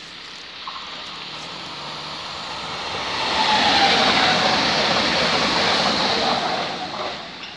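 Electric passenger train passing close by on the tracks: a rush of wheels on rails that builds, is loudest for a few seconds around the middle, and fades near the end. A faint falling tone is heard as the train goes by.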